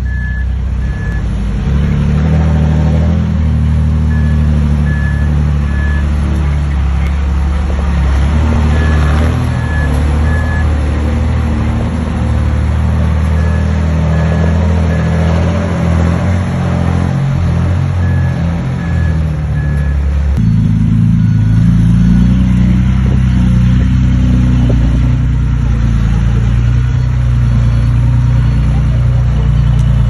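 Heavy diesel earthmoving machinery running, with a reversing alarm beeping in sets of three short high beeps about every four and a half seconds. The beeping stops about two-thirds of the way through, where the engine sound changes abruptly.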